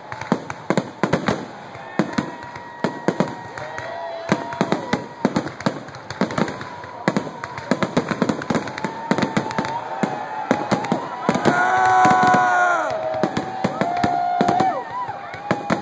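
Fireworks display: shells bursting and crackling in a rapid, irregular string of bangs. Over them, people call out with long whoops, loudest a little past the middle.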